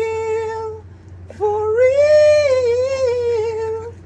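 A high voice holding two long sung or hummed notes. The first ends about a second in. The second starts a moment later, rises a little, then settles and holds until near the end.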